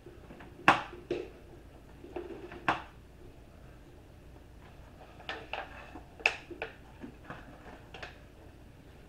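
Knife clinking and scraping against a metal baking sheet while cutting through a lasagna: a scatter of short, sharp clicks. The loudest comes about a second in, and another cluster follows around six seconds in.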